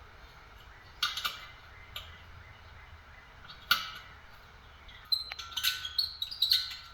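Small metal clicks and short squeaks of a hand tool working the little Allen screws on a diesel heater's combustion chamber as they are tightened down snug, a few separate clicks and then a quicker run of clicks and squeaks near the end.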